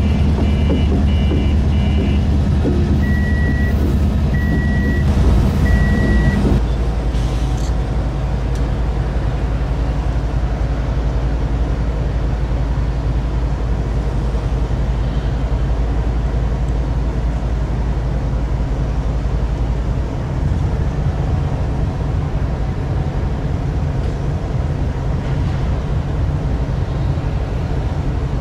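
Union Pacific diesel-electric freight locomotive engine running steadily, first rolling slowly, then standing at idle. In the first few seconds a series of electronic beeps sounds: quick short ones, then three longer ones.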